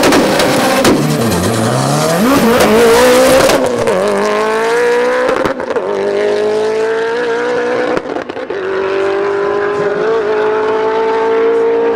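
Mitsubishi Lancer Evolution's turbocharged four-cylinder launching off the line and accelerating hard. A loud hiss covers the first few seconds. The engine note climbs in each gear and drops at upshifts about four, five and a half and eight seconds in.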